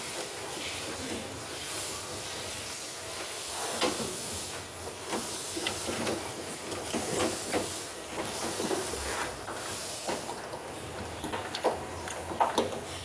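Scattered light clicks and knocks of parts being handled during work on a washing machine, over a steady hiss.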